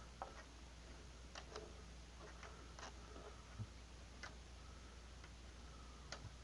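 Near silence with a few faint, scattered clicks and light taps from small objects being handled.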